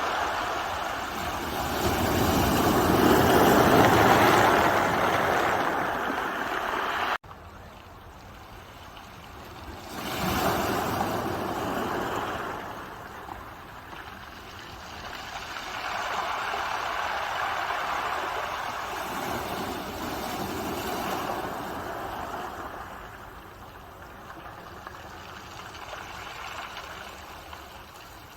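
Ocean waves breaking and washing ashore, a rushing sound that swells and fades. The loudest wave comes first and cuts off abruptly about seven seconds in. Softer waves then wash in every few seconds.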